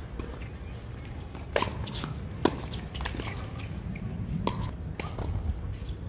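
Tennis ball struck by rackets during a doubles rally: a few sharp pops, the loudest about two and a half seconds in, then a couple of lighter knocks, over a steady low rumble.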